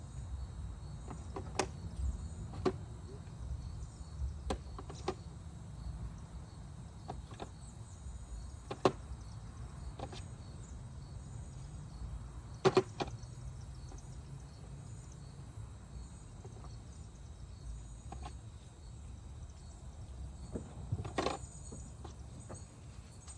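Scattered clicks and knocks of cooling-system pressure tester adapter caps being handled and tried on the coolant filler neck, over a low steady rumble; three sharper knocks stand out.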